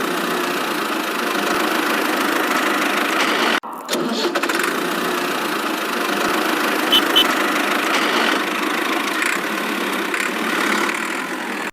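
A small engine running steadily, with a brief drop-out about three and a half seconds in and two short high blips near seven seconds.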